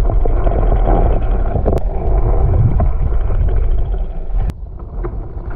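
Inline spinner lure being retrieved, heard through an underwater GoPro: a steady low rumble with a few sharp clicks. This is the noise and vibration that the spinning blade sends through the water to draw predatory fish. The rumble drops off about four and a half seconds in.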